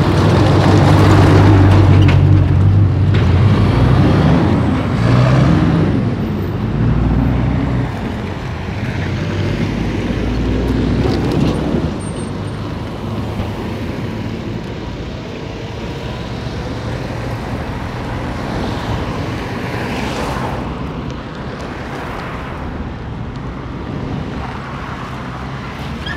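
Roadside traffic: a heavy truck's diesel engine runs loud as it passes close in the first several seconds, its pitch shifting as it goes. After that comes steadier, quieter road noise as lighter vehicles such as a van pass.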